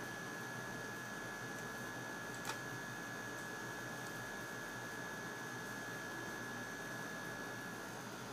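Steady electrical hum and hiss with a thin high whine, and a single click about two and a half seconds in.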